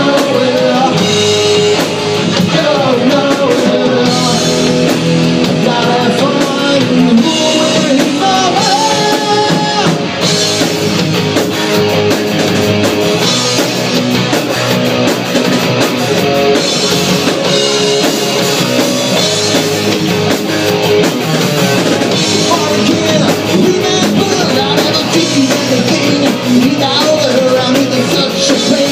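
Rock band playing live: distorted electric guitar, electric bass and drum kit, with a man singing over them.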